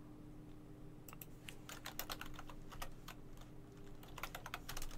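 Typing on a computer keyboard: quiet key clicks, a few scattered ones starting about a second in, then a quicker, denser run near the end, entering a username and password at a login prompt.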